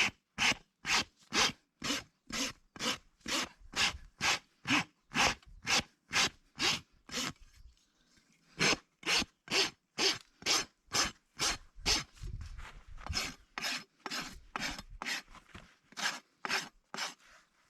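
Farrier's rasp being drawn across a horse's hoof in steady strokes, about two a second, with a short pause partway through before the rasping starts again.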